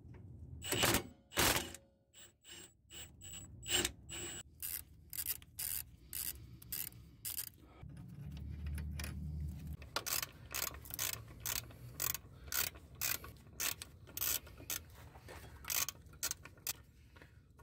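Hand ratchet wrench clicking in short, irregular runs as suspension and brake-fitting bolts are turned loose. A faint low hum comes in briefly a little past the middle.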